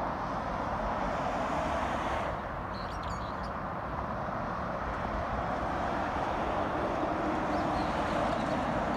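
Steady noise of road traffic on an expressway, cars and trucks passing continuously. A few faint high chirps come about three seconds in and again near the end.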